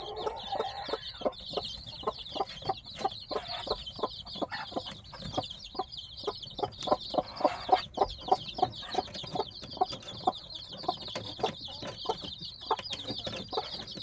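A chorus of ten-day-old chicks peeping continuously and high, over a brooding mother hen's steady run of short clucks, about three a second. The hen is gathering her chicks under her wings at nightfall.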